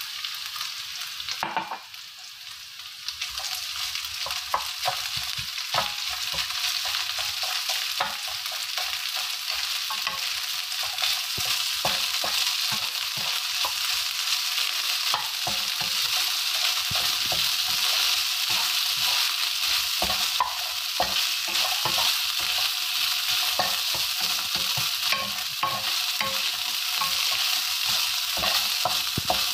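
Rice and diced carrot frying and sizzling in a nonstick pan while a wooden spatula stirs and scrapes, with many small taps and scrapes against the pan. The sizzle goes quieter about two seconds in, then builds back up and holds steady.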